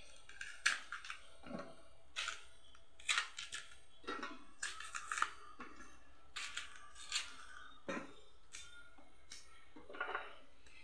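Small knife peeling the skin off a raw green banana: irregular short cutting and scraping strokes through the peel.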